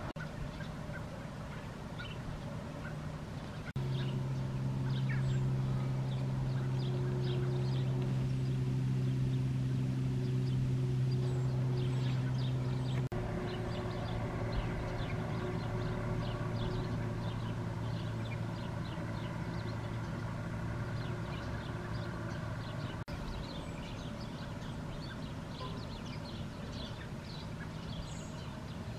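A steady low hum with a few overtones, as from a running engine or machine, jumping suddenly to a different pitch and loudness a few times, with many short high chirps or ticks scattered over it.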